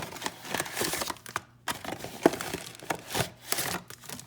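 A cardboard trading-card box being torn open and its packaging handled: a run of crackling, tearing and snapping, with one sharp snap a little past two seconds in.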